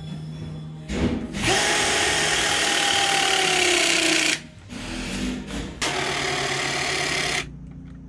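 Milwaukee M18 Force Logic 12-tonne battery hydraulic crimper's motor and pump driving the dies through a crimp on a cable lug. The whine drops slowly in pitch as the pressure builds for about three seconds and then stops. It runs again for about a second and a half near the end.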